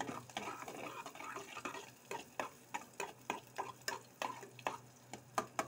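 A spoon stirring garlic and onion sautéing in oil in a pot, scraping and knocking against the pot. From about two seconds in the strokes come as a regular series of sharp taps, about three a second.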